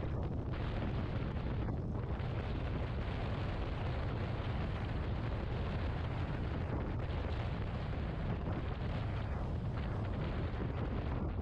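Steady wind buffeting and rumble on the microphone of a Yamaha XMAX 250 maxi-scooter cruising at road speed on a highway, with no breaks.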